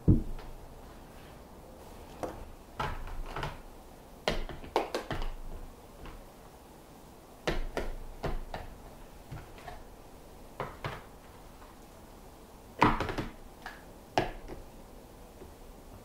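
Food containers and refrigerator fittings being handled: a sharp knock right at the start, then scattered clicks, taps and clatters in short clusters, with another loud clatter about three-quarters of the way through.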